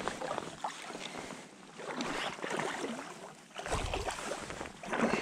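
Irregular water splashing and sloshing around a hooked trout being played close in, with wind buffeting the microphone from about two-thirds of the way through.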